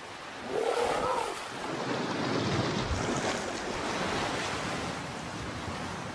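Surf breaking and washing over a beach as an orca lunges through the shallows, a steady rushing wash of water. About a second in, a seal pup gives a short wavering call.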